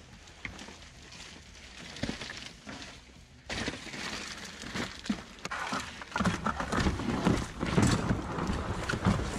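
Ice fishing gear being handled and packed close to the microphone: plastic clattering, knocks and rustling, much louder from about three and a half seconds in.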